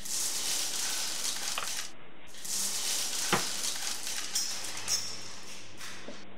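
Granulated sugar spooned into a plastic funnel and trickling down into an empty bottle, a grainy hiss in two runs with a sharp tap a little after three seconds in.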